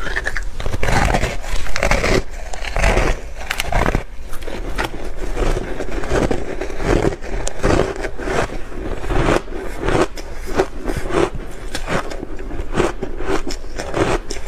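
Close-up chewing of matcha-powdered bar ice: a dense run of sharp crunches and cracks as the frozen ice breaks between the teeth.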